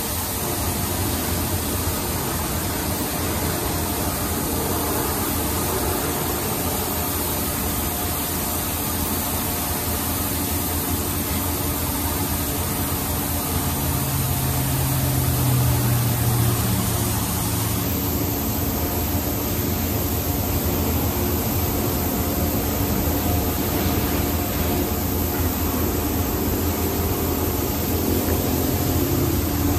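D&S 5000 touchless car wash running a wash cycle: a steady hiss of high-pressure water spray over a constant low hum from the machine as the gantry travels along a pickup truck, with a brief low tone about halfway through.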